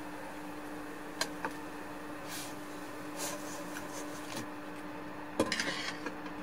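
A few light clicks and knocks with brief rustling over a steady low hum, the loudest cluster about five and a half seconds in.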